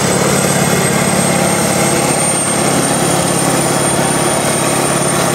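Kirovets K-700 articulated tractor's diesel engine running loud and steady under heavy load while pulling a weight-transfer sled.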